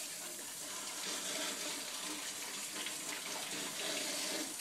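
Steady hiss and spatter of a Water Saber high-pressure water jet spraying inside a small residential boiler, washing loose carbon and soot out of it.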